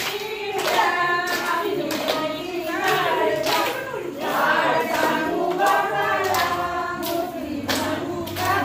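A group of women singing a zimma folk song together, with regular hand claps keeping the beat of the circle dance.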